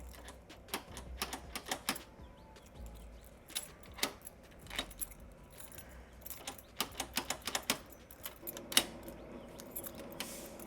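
Keys jangling and a run of sharp metallic clicks, irregular and in clusters, as a key is worked in a mortise lock's cylinder.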